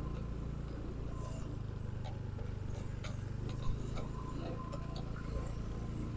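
Motor scooter engine running steadily at low speed, with one light knock a little past halfway.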